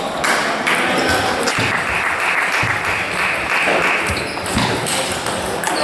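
Clapping and crowd hubbub in a large sports hall for about four seconds, fading near the end, with scattered clicks of table tennis balls striking bats and tables.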